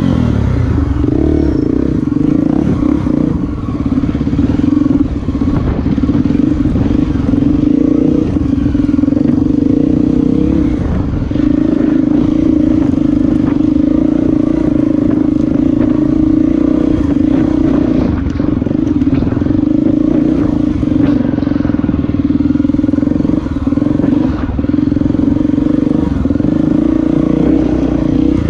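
Honda XR250 Tornado's single-cylinder four-stroke engine running while the bike is ridden. The revs hold fairly steady and dip briefly several times as the throttle is eased.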